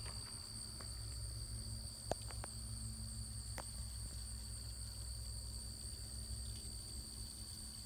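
Steady, high-pitched chorus of insects droning in a summer field, over a low wind rumble on the microphone, with a couple of faint clicks about two and three and a half seconds in.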